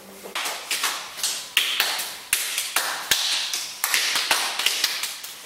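A group of people clapping out a rhythm: sharp, slightly ragged claps about three or four a second, starting about a third of a second in.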